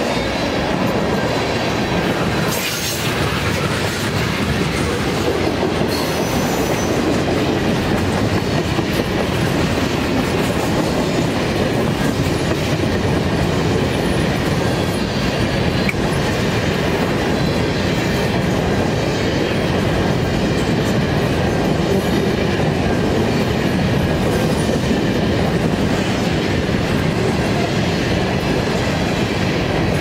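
Freight cars of a mixed manifest train, tank cars and covered hoppers, rolling steadily past: a continuous rumble and rattle of steel wheels on the rails.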